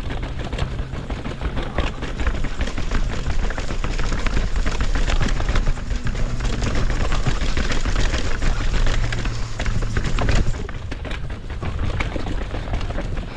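Mountain bike clattering down a long flight of stairs: a fast, unbroken run of impacts as the wheels drop off step after step, over a low rumble.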